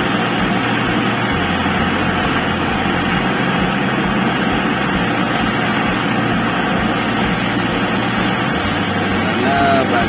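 Gas brazing torch burning with a steady hiss, its flame held on a copper-to-steel refrigerator pipe joint being brazed with borax flux.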